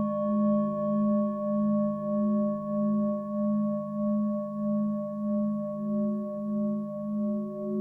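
Singing bowl ringing on after a strike, a deep hum with fainter higher overtones, wavering in a slow pulse about one and a half times a second.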